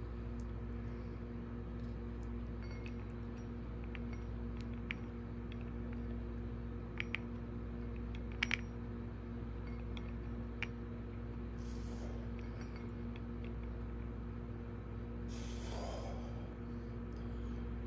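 A steady electrical hum runs throughout. Over it come a handful of light metallic clinks from a steel-spring hand gripper being squeezed in short choke closes, the loudest about eight and a half seconds in. Two brief rustles fall near the end.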